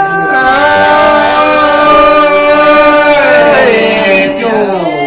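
Unaccompanied Vietnamese Thai folk singing (hát Thái) by a man's voice, drawing out long held notes that slide slowly between pitches, the melody sinking about four seconds in.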